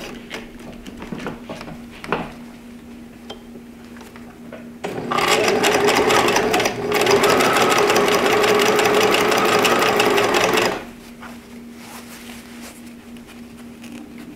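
Bernina 1008 sewing machine stitching through curtain fabric: it starts up about five seconds in, runs fast with a brief slowdown partway, and stops about six seconds later. Light clicks of fabric being handled before and after.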